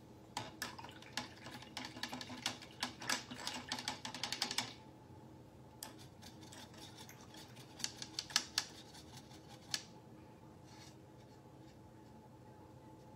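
A paintbrush being swished and tapped in a cup of rinse water, its handle clicking and clattering quickly against the cup for a few seconds. After a pause comes a shorter spell of a few louder clicks.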